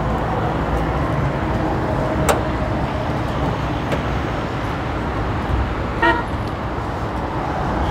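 Steady vehicle and traffic rumble, with a single sharp click about two seconds in and a brief car-horn toot about six seconds in.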